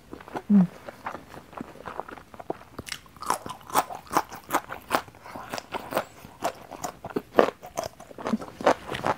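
Raw yardlong bean (kacang panjang) being bitten and chewed close to the microphone: crisp crunches, about two or three a second, from about three seconds in. A short low hum from the eater comes near the start.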